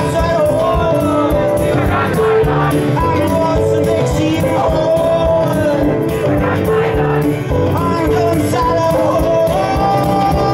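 Live band music: a male voice singing a melody over a full band with keyboard and steady drums.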